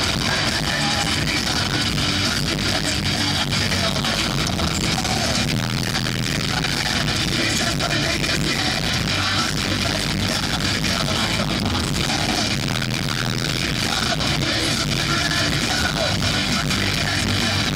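Live rock band playing loudly at an arena concert: distorted electric guitar over drums.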